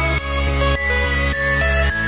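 Background electronic dance music with a steady beat of about two strokes a second and a held synth melody that steps in pitch.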